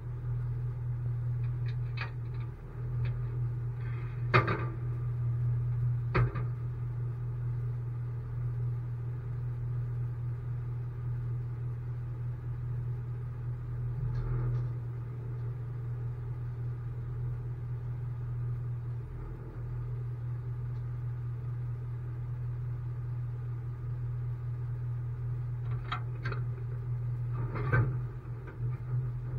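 Tow truck engine idling with a steady low hum. A few sharp knocks and clanks break in, the loudest about four seconds in and a cluster near the end.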